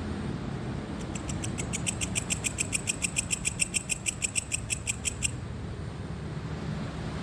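A cricket chirping in a fast, even train of high-pitched pulses, about seven a second, starting about a second in and stopping after about four seconds. Under it runs a steady low rumble of ocean surf.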